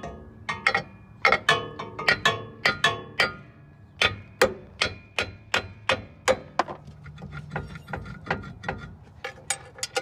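Repeated hammer blows on a rusted, seized steel brake drum, metal on metal, roughly two a second, each with a short ring. The drum is being beaten to break it free. The strikes pause briefly a little past three seconds in.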